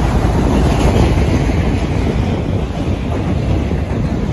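Loaded autorack freight cars rolling past at about 30 mph: a steady, loud run of steel wheels on the rails with clickety-clack over the joints.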